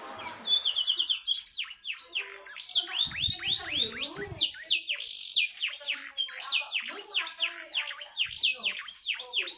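Canary singing a fast, densely packed song: rapid runs of high notes, each sliding downward, about ten a second, broken by short pauses.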